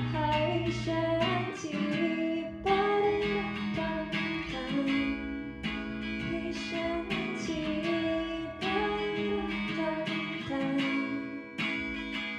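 Acoustic guitar strumming chords in an instrumental passage of a song, with a melody line over it.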